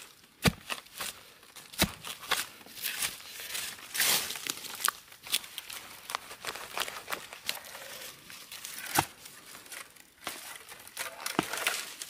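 Soil being dug and scraped away from a bamboo shoot: loose earth, roots and dry debris crumbling and rustling, with a few sharp knocks of the digging tool.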